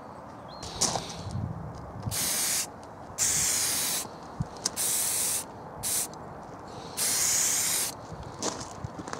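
Aerosol spray paint can spraying a metal bracket in about five short hissing bursts, each half a second to a second long, with brief pauses between.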